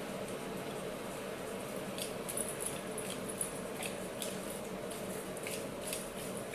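A dog gnawing corn kernels off a cob: scattered small crunches and clicks, busiest in the middle, over a steady low hum.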